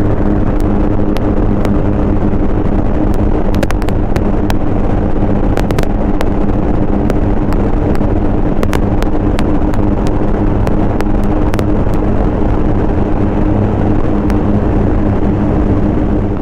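A vehicle on the move: steady engine and road drone with two even hums, and scattered light clicks and ticks on top.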